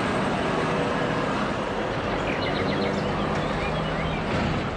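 Steady street traffic noise, with the diesel engine of a heavy tow truck hitched to a double-decker bus running underneath.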